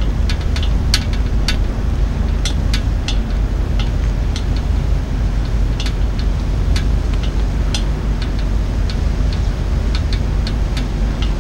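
Steady low rumble, typical of wind buffeting the microphone, with irregular sharp ticks a few times a second.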